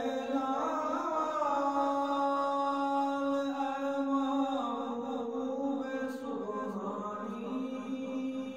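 A young man's unaccompanied voice singing a Salam, a devotional salutation to the Prophet, in long held notes that turn slowly from pitch to pitch.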